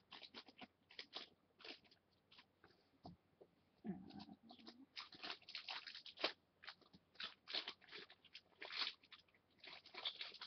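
Faint, irregular crinkling of thin plastic packaging as it is handled.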